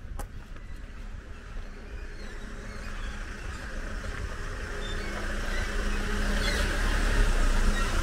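A motor vehicle passing close by on the street, its engine and tyre noise growing steadily louder over several seconds, loudest near the end, then starting to fade.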